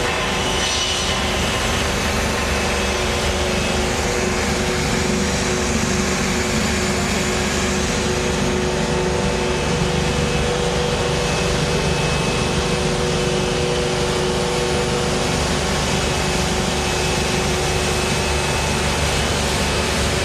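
Wood-plastic composite profile extrusion line running: a steady machinery whir and hiss with a couple of unchanging hum tones, no strokes or breaks.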